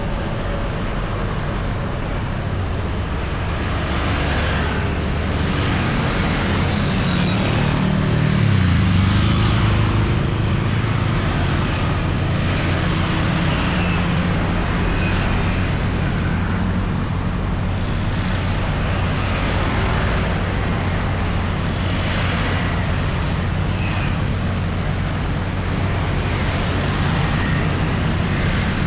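Steady road traffic of cars and motorbikes passing on a busy city main road, tyres hissing one after another. A deep engine rumble from a heavy vehicle grows loudest about eight seconds in and carries on under the traffic.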